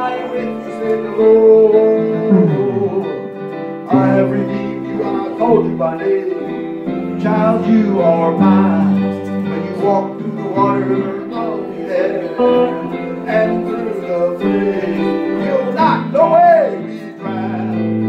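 Live worship music: an electric guitar and a keyboard playing a slow song while a man sings.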